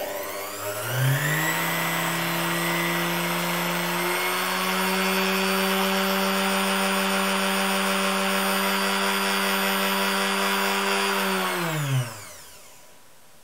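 Small vintage AC electric motor, taken from a clockmaker's grinding and polishing machine, run through an old foot-pedal speed controller worked by hand. It spins up with a rising whine, picks up a little more speed about four seconds in, then holds a steady whine. Near the end it runs down in pitch and stops.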